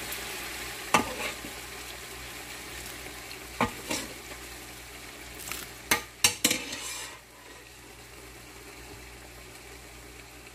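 Cooked mung beans and broth being served into a ceramic bowl, with sharp knocks of the utensil against the pot and bowl about 1 s, 3.5–4 s and 6–6.5 s in. A steady hiss runs underneath and fades about seven seconds in.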